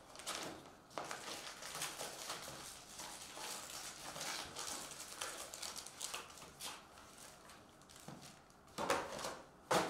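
A cardboard trading-card hobby box being opened by hand and its foil-wrapped card packs pulled out: a continuous run of rustling, crinkling and light scraping, with two sharper knocks near the end.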